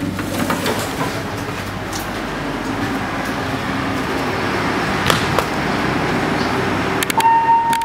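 Steady rumble and hiss of a passenger train standing at a station platform, with a few sharp knocks. A steady high tone begins near the end.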